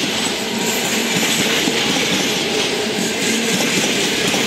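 Passenger coaches rolling past close by, their steel wheels running over the rails with a steady clatter.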